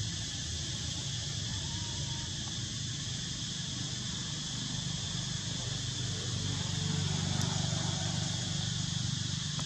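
Steady high insect drone from the trees over a low steady rumble, growing a little louder near the end.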